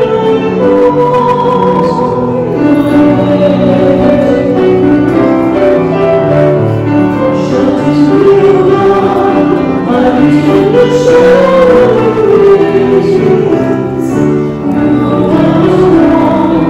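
A hymn sung over held accompaniment chords. The melody line wavers with vibrato above chords that change about every second.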